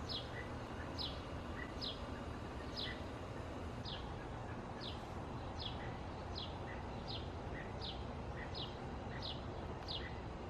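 A bird repeating a short, high, falling chirp about once a second, coming a little faster toward the end, over a steady low outdoor background noise.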